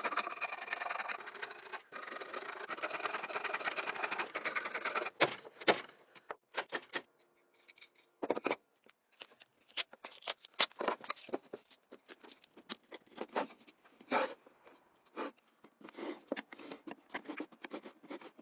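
Hand rubbing or sanding on a hard surface for about five seconds, then a string of sharp clicks, taps and short scrapes as the piece is handled and worked.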